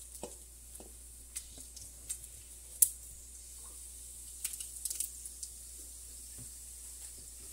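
Whole spices (cinnamon, cardamom, cloves) frying in hot oil in a karahi, sizzling faintly with scattered small crackles and pops. One sharper pop comes a little before the middle. This is the tempering stage, as the whole spices start to fry in the oil.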